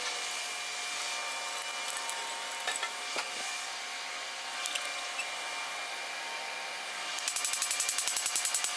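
Metal clinks and clicks from a cam bearing installer bar being fitted into the cam tunnel of an LS engine block, over a steady shop hum. Near the end there is about a second and a half of rapid rattling at about ten clicks a second.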